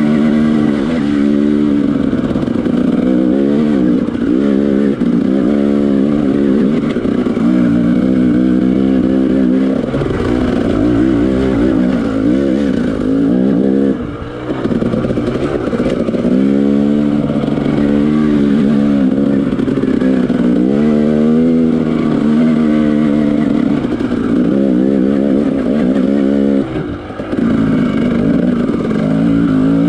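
Dirt bike engine revving up and down as it climbs a rough trail, the pitch rising and falling every second or two with the throttle. There are two brief drops in level, about halfway through and near the end.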